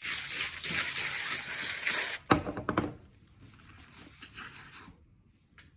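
Aerosol foam can spraying with a steady hiss for about two seconds, then a single sharp click as the spraying ends.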